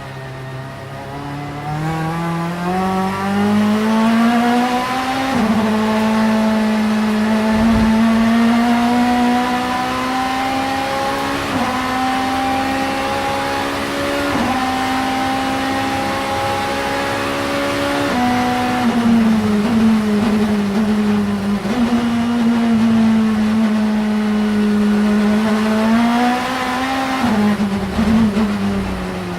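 Vauxhall Vectra Super Touring race car's 2.0-litre four-cylinder engine under hard acceleration, its pitch climbing and then stepping down sharply at each quick upshift, several times a few seconds apart. About two thirds of the way through the revs fall away as it slows, then it builds again and shifts up once more near the end.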